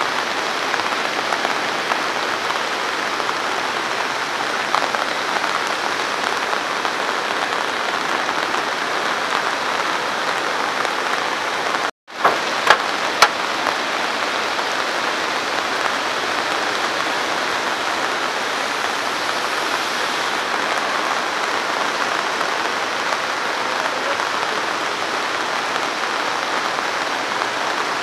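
Steady hiss of rain falling. About halfway through the sound drops out for a moment, followed by a few sharp clicks.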